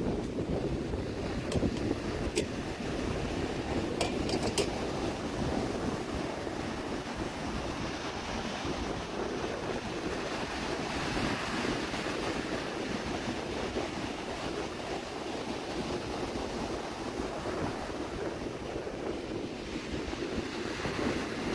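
Sea surf washing and breaking continuously in slow swells, with wind rumbling on the microphone. A few faint clicks in the first five seconds.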